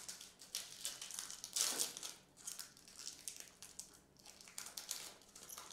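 Foil wrapper of a trading-card pack crinkling and crackling as hands tear it open, in irregular bursts with the loudest flurry about a second and a half in.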